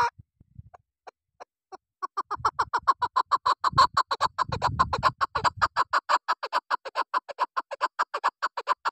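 Female chukar partridge calling: a few single notes, then from about two seconds in a fast, even run of short clucking notes, around seven a second. A low rumble sits under the first few seconds of the run.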